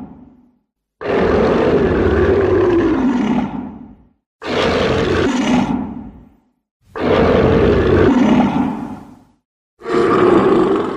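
Godzilla roar sound effects: four separate loud roars, each two to three seconds long, with dead silence between them. The end of an earlier roar fades out at the start, and the first full roar falls in pitch.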